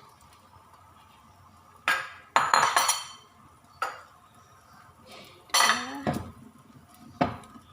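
Kitchen utensil clinking and scraping against a bowl and frying pan: a handful of separate sharp knocks and short rattling clusters, the busiest about two and a half seconds in.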